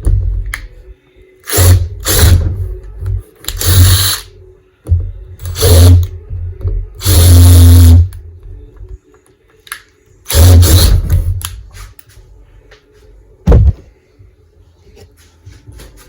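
Power drill run in about six short bursts with pauses between, the longest about a second, drilling a pilot hole in a wooden board.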